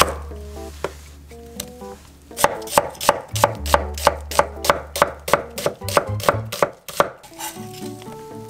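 Chef's knife slicing an onion on an end-grain wooden cutting board: a quick, even run of sharp chops, about four a second, starting about two and a half seconds in and stopping about seven seconds in.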